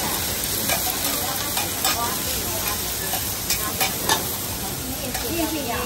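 Oysters and other food sizzling on a large flat-top griddle, with a metal spatula and tongs scraping and clinking against the hot iron several times as the oysters are turned.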